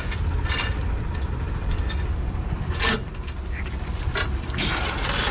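Heavy truck diesel engine idling with a steady low rumble, while chains give intermittent metallic clinks and jangles as they are handled to rig the axle for a tow.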